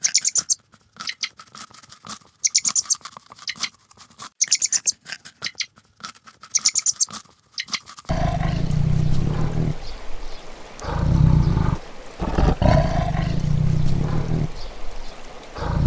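A rabbit nibbling and chewing, heard as a quick run of crisp crunches. About halfway through, a white tiger starts growling: four low, drawn-out growls in a row.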